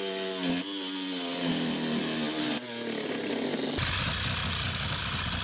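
Cordless reciprocating saw cutting through a window's nail fin, its motor whine rising and dipping as the trigger and load change. A little past halfway the sound turns to a rougher, rattling cut.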